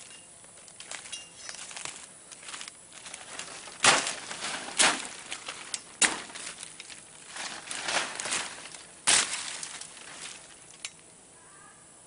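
Dry leaf litter and brush rustling and crunching underfoot and by hand, with four sharp cracks of snapping sticks or strikes spread through the middle.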